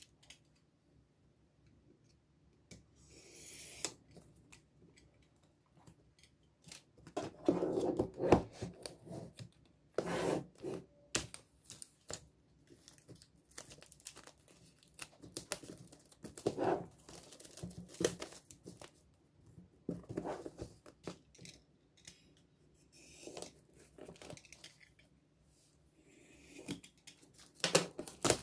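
Clear plastic shrink-wrap being torn and peeled off a MacBook Pro's cardboard box, in irregular bursts of tearing and crinkling with short quiet pauses between.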